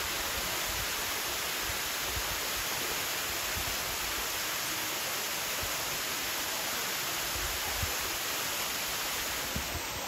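Tall mountain waterfall, the roughly 30-metre main fall at Ng Tung Chai, pouring down a rock face: a steady, even rush of falling water.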